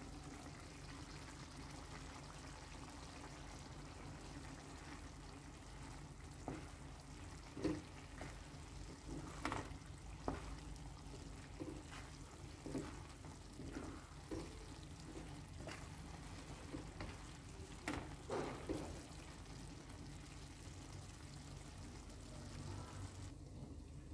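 Wooden spoon stirring thick bulgur pilaf in a pot, giving a run of soft knocks and scrapes against the pan over a faint steady background.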